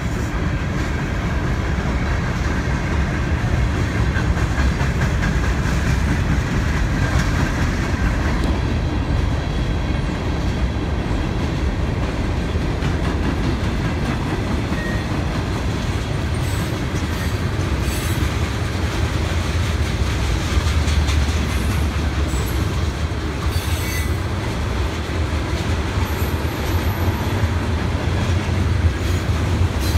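Freight train cars, mostly covered hoppers, rolling steadily past: a continuous low rumble of steel wheels on rail, with a few sharp clacks about halfway through and again later as wheels cross rail joints.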